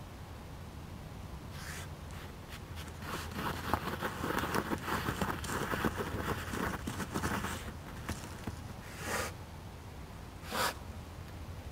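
European otter sniffing and snuffling at the ground: a rapid run of short sounds from about two seconds in, loudest in the middle, then two single sharp sniffs near the end.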